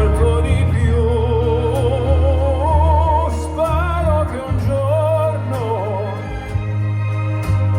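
Music from a fireworks show's soundtrack: a song in which a singer holds long notes with a wide vibrato, in an operatic style, over a steady, heavy bass.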